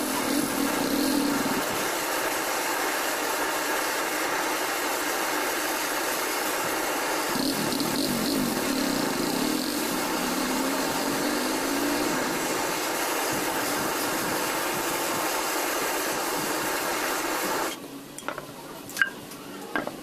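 Butane canister blow torch burning with a steady hiss while heating the hub around a ceiling fan motor's shaft. The hiss cuts off suddenly near the end, and a few light clicks of metal parts being handled follow.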